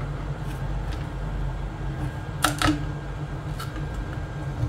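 Hot air rework gun blowing steadily with a low hum, used to soften resin on a plastic detector housing. Small clicks and scrapes come from a pick working the softened resin, with a sharper double click about two and a half seconds in.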